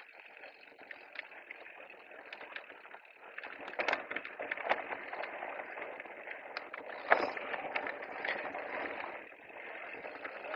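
Electric mountain bike riding a dirt trail: rough tyre noise over the ground, with knocks and rattles from the bike as it hits bumps, the sharpest about seven seconds in. The first few seconds are quieter.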